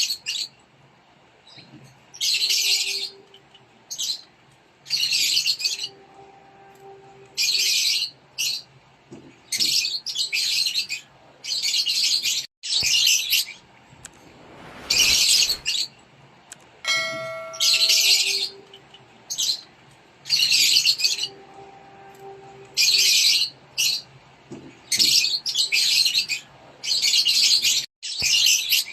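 Rosy-faced lovebirds calling: harsh, high, short bursts repeated about every one and a half to two seconds.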